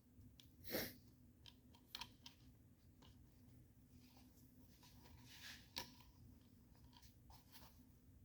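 Faint, scattered clicks and scrapes of hand-work on a car's vent window assembly, metal parts and tools knocking against each other a few times.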